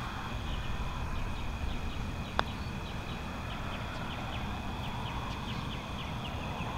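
A putter strikes a golf ball once, a single sharp click about two seconds in. Under it runs a steady chorus of evening insects chirping in quick, regular pulses.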